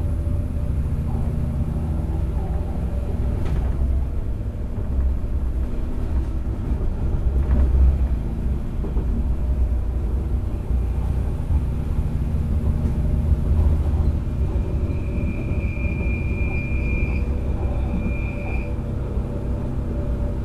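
Bombardier Desiro (DB class 642) diesel railcar under way, heard from inside: a steady low rumble from its underfloor diesel engines and its wheels on the track. A high, steady whine joins in for about three and a half seconds near the end, with a short break.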